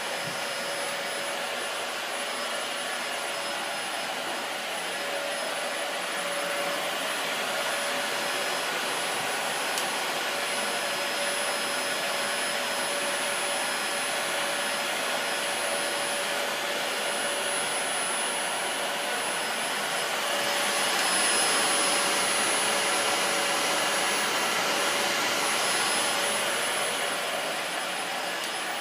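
Dyson DC40 Animal vacuum running steadily with the Groom brush attachment on its hose, a rush of suction air with a steady motor whine, as the brush is drawn through a dog's long coat and pulls out loose hair. The rush swells a little about two-thirds of the way through.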